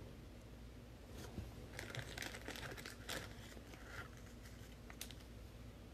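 Faint crinkling and rustling of trading cards and their plastic packaging being handled, with a few light clicks, busiest from about one to three seconds in.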